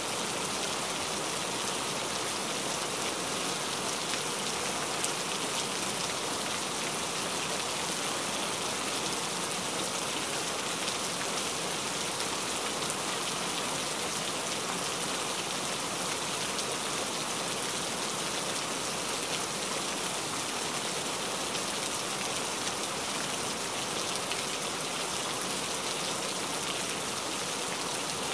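Steady rainfall: an even hiss of falling rain, unchanging throughout.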